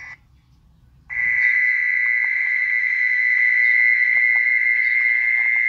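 Mole cricket call played back through a battery-powered horn loudspeaker as a lure for catching mole crickets: a loud, steady, unbroken high trill that starts about a second in, after a moment of near silence.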